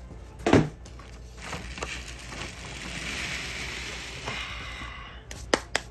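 A cardboard box being moved aside: a sharp knock about half a second in, then a few seconds of rustling and scraping handling noise, and a few sharp clicks near the end.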